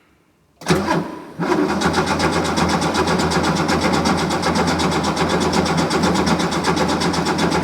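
Classic Porsche 911 air-cooled flat-six being cranked on the starter motor in a steady, even rhythm without firing: its fuel lines are drained and empty, so no fuel is reaching it yet. The cranking begins just under a second in and keeps going for about seven seconds.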